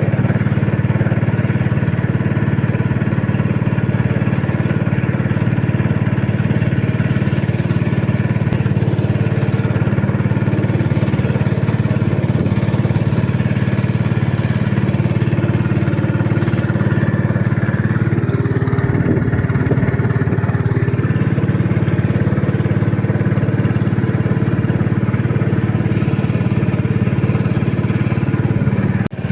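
Boat's outboard motor running at a steady speed, a constant low drone.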